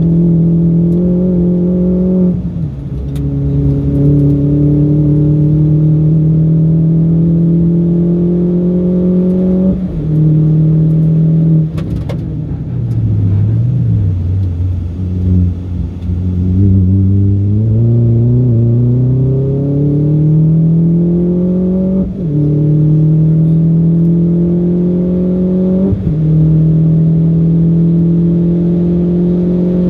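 Mini Cooper R56 John Cooper Works' turbocharged four-cylinder engine at full throttle on track, revs climbing and dropping back at each upshift. About twelve seconds in the revs fall away under braking with downshifts for a slow corner, then climb again through the gears.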